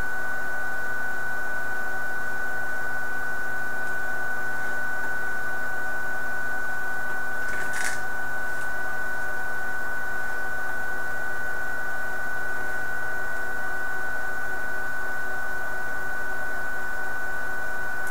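Desktop CNC router running with a steady, unchanging high-pitched whine, with one short hiss about eight seconds in.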